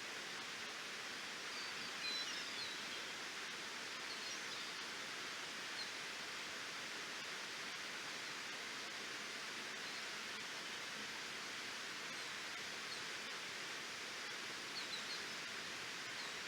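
Waterfall rushing steadily, with a few faint high chirps about two seconds in and again near the end.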